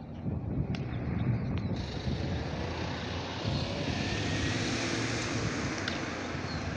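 Steady drone of a propeller airplane flying over, swelling over the first two seconds and then holding. A few faint sharp pops, like a baseball smacking into a glove, cut through it.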